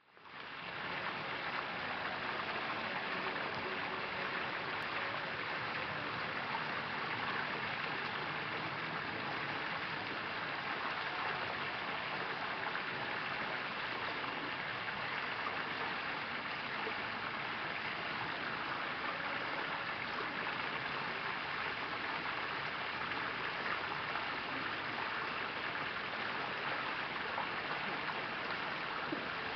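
Steady rushing of running water, with no change throughout.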